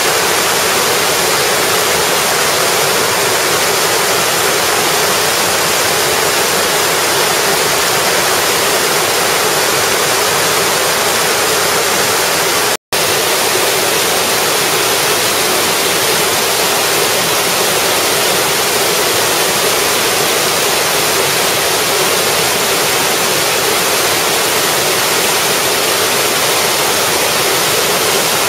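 Steady rush of a small waterfall cascading in many tiers onto rocks. The sound cuts out completely for a split second about 13 seconds in.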